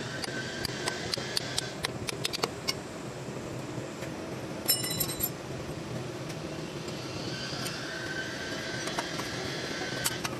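Hand tools tapping and clicking on engine metal: a run of light sharp taps, then one ringing metal clink about halfway through, and a few more taps near the end, over a steady workshop hum.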